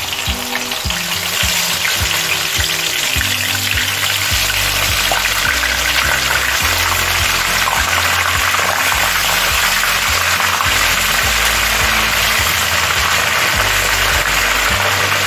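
Pieces of marinated hake fish sizzling as they deep-fry in hot vegetable oil in a frying pan. The frying gets louder over the first couple of seconds as more pieces go into the oil, then holds steady.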